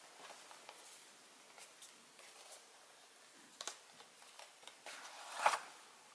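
Faint handling of a card product box: light taps and rustles, then about five seconds in a short, rising scrape of card sliding against card as the box is slid out of its sleeve.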